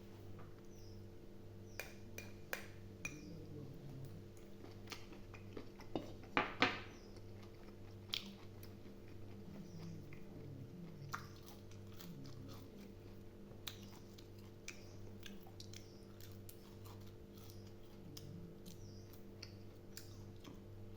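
Close-up wet chewing and biting of boiled pig offal, with scattered small clicks and a few louder bites about six seconds in, over a steady low hum that pulses about twice a second.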